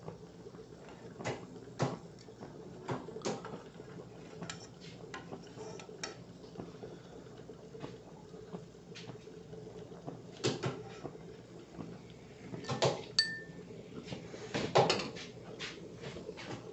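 Metal spoon knocking and clinking against an aluminium frying pan and a ceramic bowl as fried fish pieces are lifted out of the oil: irregular sharp clinks, with a few louder knocks in the second half.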